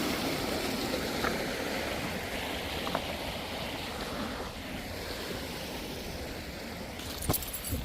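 A river in high water rushing steadily, slowly fading, with a couple of sharp knocks near the end.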